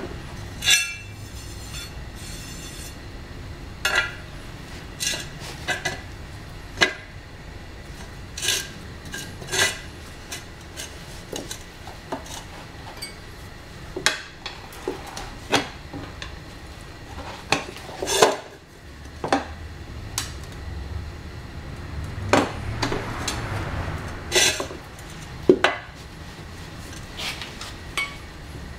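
Metal tyre-fitting tools clinking and knocking against a moped's wheel rim while a tubeless tyre is mounted: sharp, irregular clinks every second or so over a low steady hum.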